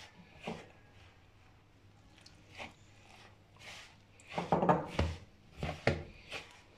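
A hand mixing dry wheat flour and maida in a bowl: soft, irregular scrunching and rubbing strokes, coming thicker and louder from about four and a half seconds in.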